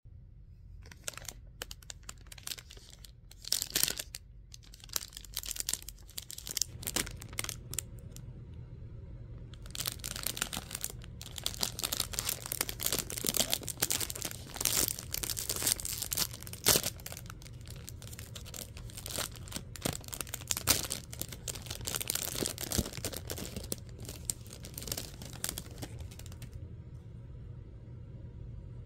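Plastic ice cream bar wrapper being torn open and crinkled by hand. There are scattered crackles at first, then nearly continuous crinkling from about ten seconds in, stopping a couple of seconds before the end.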